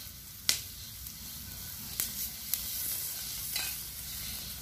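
Clams topped with scallion oil sizzling on a charcoal grill, a steady crackling hiss. A few sharp clicks break through it.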